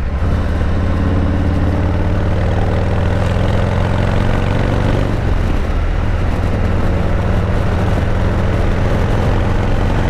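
Harley-Davidson Softail Deluxe's Milwaukee-Eight V-twin engine pulling along the road with wind rush. The note drops at a shift right at the start, climbs until about halfway through, changes again, then holds steady.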